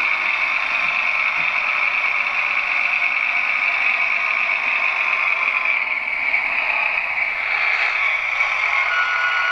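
Sound decoder of a Trix H0 model of the DB class 724 Indusi measuring railcar playing its diesel railcar running sound through the model's small speaker as it drives along the track, a steady hiss-like drone. A brief thin whistle comes near the end.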